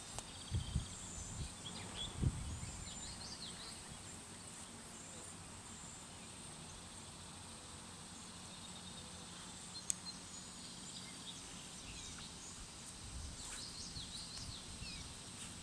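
Rural outdoor ambience: scattered bird chirps over a steady high-pitched hum, with a few low thumps in the first couple of seconds and a single sharp click about ten seconds in.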